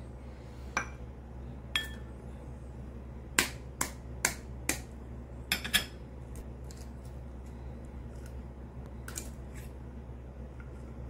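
Sharp taps and clinks of eggshell and a metal fork against a ceramic bowl as eggs are cracked and the whites separated from the yolks, most of the taps coming close together in the middle. A steady low hum runs underneath.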